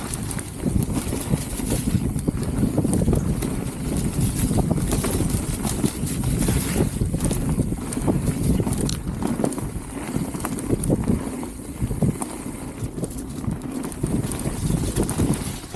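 Mountain bike riding down a muddy trail: a steady low rumble of wind on the action camera's microphone and tyres on wet dirt, with frequent short clatters as the bike goes over bumps.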